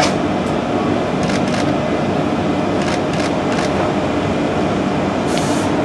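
London Underground 1962 Stock rail adhesion train approaching: a steady rumble with a few scattered clicks, and a brief hiss near the end.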